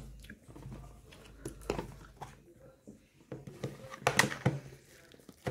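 Hands handling a small plastic tub of foam-bead pearl clay, giving scattered soft clicks and crackles that come thicker a little after halfway.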